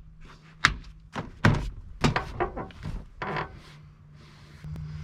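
Door trim panel being thumped by hand to push its retaining clips back into the door, giving about five sharp knocks over the first three seconds or so.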